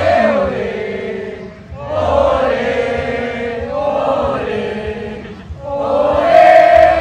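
Chanting voices in long drawn-out phrases, dipping briefly about a second and a half in and again near the five-and-a-half-second mark.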